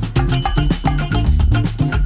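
Background music with a steady percussive beat and bass line, in a Latin style.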